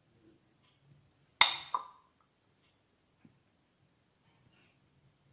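A steel spoon clinks once against a dish about a second and a half in, with a short ring and a lighter tap just after. Otherwise near silence.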